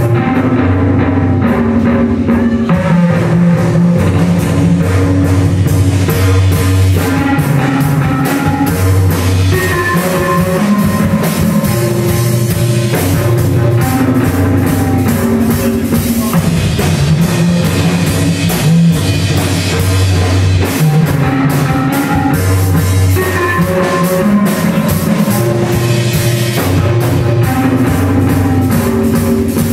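Live rock band playing loud and steady, with electric guitar, a bass line moving note by note and a drum kit.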